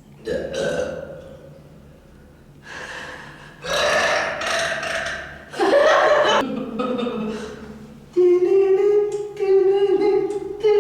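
A woman burping several times in a row: a string of short belches, then from about eight seconds in two long, drawn-out burps held on a steady low pitch.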